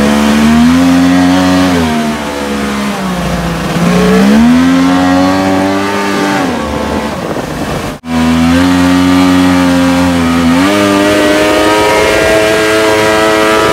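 1100 cc, 120 hp jet-ski engine driving the water-jet drive of a homemade boat under way, its pitch climbing and falling several times as the throttle is opened and eased. The sound breaks off for an instant about eight seconds in, comes back at high revs, then drops and holds a steady run near the end.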